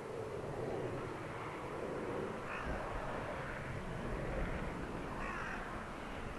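Airbus A321 jet airliner climbing out after takeoff, its engine noise a steady distant rumble. A crow caws twice over it, about two and a half and five seconds in.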